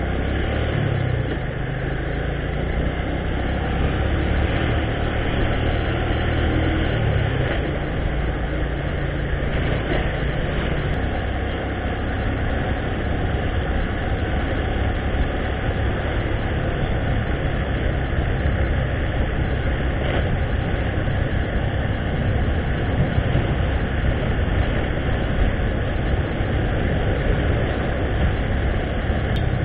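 Motorcycle engine running under way with wind and road noise rushing over the camera's microphone. The engine note shifts up and down in the first ten seconds as the bike changes speed, then the wind rush takes over.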